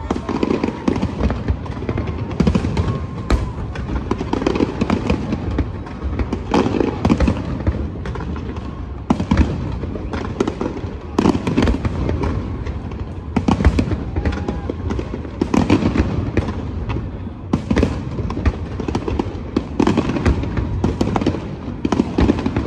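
Large aerial fireworks display: a continuous barrage of bangs and crackling bursts, shells going off every second or two without a break.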